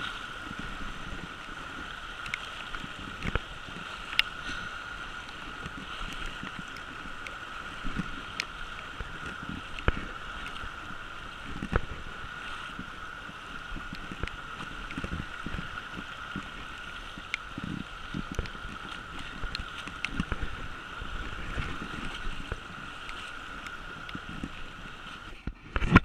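Steady rush of fast-flowing river water through riffles, with scattered knocks and splashes from wading through it. The water sound drops away just before the end.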